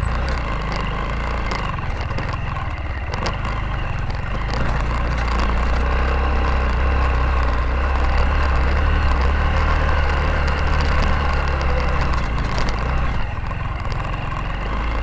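Motorcycle engine running steadily as it rides over a rough dirt road, with scattered clicks and knocks from the bumps.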